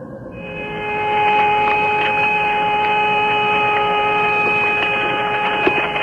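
Several steady whistling tones sounding together over the Apollo 10 radio link: the so-called 'space music' heard on the far side of the Moon, put down to interference between the VHF radios of the lunar module and the command module. The tones fade in over the first second, then hold at a level pitch, over a faint radio hiss.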